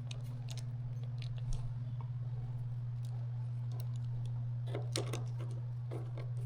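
Light clicks and scrapes of a screwdriver driving screws into a metal instrument casing, sparse at first, with a quicker cluster about five seconds in, over a steady low hum.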